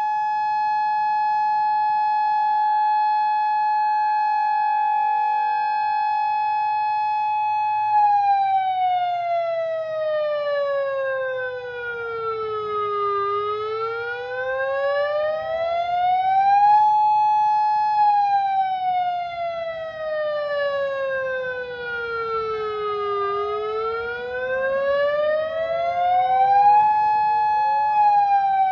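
Federal Signal outdoor warning siren sounding a steady tone, then switching about eight seconds in to a wail that slides down and back up in slow cycles of roughly ten seconds.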